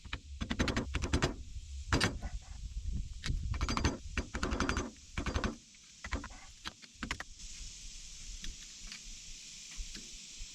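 A series of metal clanks and clinks from steel tractor hub parts being handled, about a dozen sharp knocks, some ringing, over the first seven seconds, then only a faint hiss.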